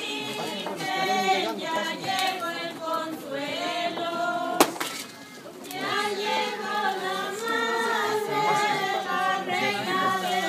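A group of people singing together. A single sharp click comes about four and a half seconds in, followed by a brief lull before the singing resumes.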